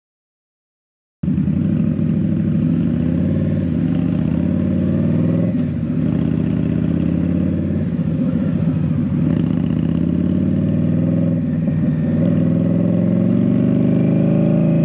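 Indian Scout Bobber's V-twin engine running under way, starting about a second in after a moment of silence. Its pitch rises and falls with the throttle.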